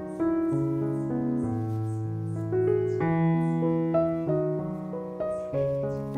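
Background piano music, with a new note or chord about every half second to a second.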